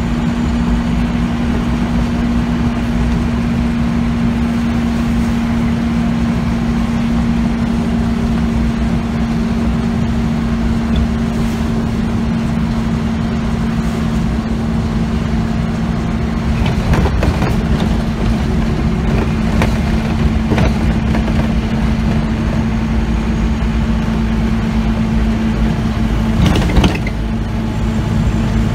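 Interior sound of a Scania OmniCity bus under way: a steady engine and drivetrain hum over low road rumble, with scattered knocks and rattles from bumps in the road, the loudest about 26 seconds in.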